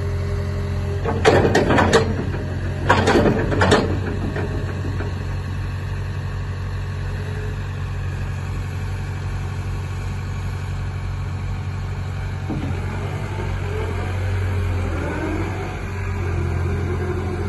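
Caterpillar hydraulic excavator's diesel engine running steadily while the upper structure swings round, with two short bursts of loud knocking about one and three seconds in. A faint whine rises and falls near the end.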